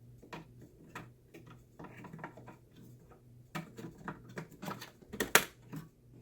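Scattered small clicks and taps of a RAM stick being handled and pressed into a memory slot on a Mac Pro's processor tray, with a sharper, louder click a little after five seconds in.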